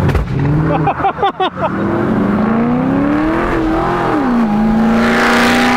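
Nitrous-fed minivan engine under hard acceleration. A quick burst of pops about a second in, like an anti-lag or two-step system. Then the engine note rises steadily, drops sharply about four seconds in and holds steady, with a rushing hiss near the end.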